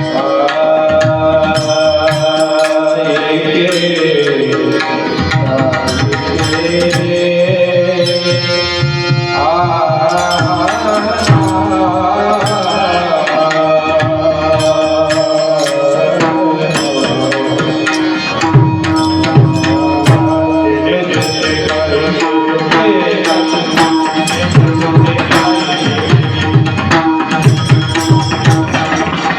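Kirtan music: a singer holding long notes that glide up and down over a steady drone, with tabla playing throughout. The drumming grows busier and louder in the last few seconds.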